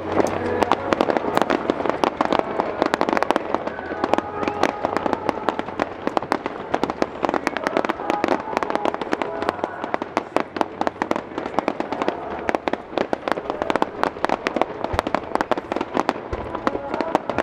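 Starmine fireworks barrage: a dense, rapid crackling and popping of many shells bursting, with music from the loudspeakers underneath.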